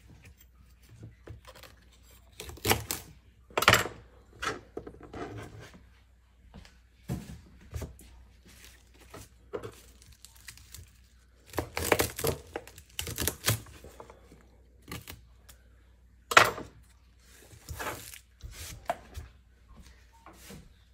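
Celery being trimmed with a kitchen knife on a plastic cutting board: crisp snapping and tearing of the stalks and knife strikes on the board, in irregular clusters, with one loudest sharp crack about two-thirds of the way through.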